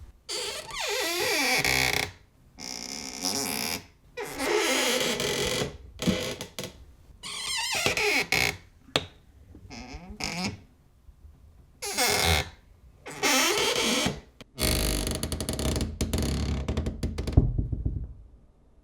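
Old door hinges creaking and squeaking as doors swing, about eight separate creaks, each a second or two long, with pitch that slides up and down. The hinges are rusty and dry.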